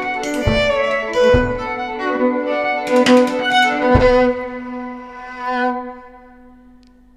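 Violin playing sustained notes over a held low note, with a drum kit striking a few accents, the last hit about four seconds in. After it the final chord rings and fades away.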